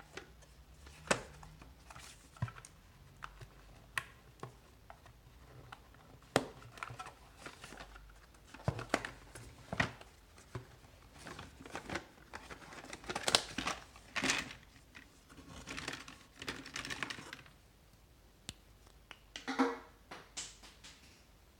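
Cardboard packaging being handled: scattered sharp taps and knocks, with longer rustling, scraping stretches in the second half as cardboard slides and is opened.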